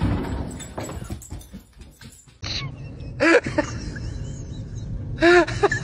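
A dog jumping against a glass sliding door: a quick run of knocks and scrabbling on the glass. After a cut, short rising-and-falling pitched calls over a low steady background, the second time as a pair.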